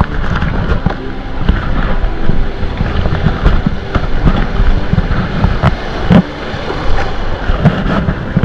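River water rushing and splashing around an inflatable kayak running a small rapid, with paddle blades slapping the water and frequent sharp knocks and splashes close to the microphone. Wind buffets the microphone.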